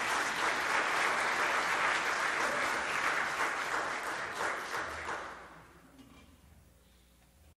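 Audience applause, dying away about five to six seconds in.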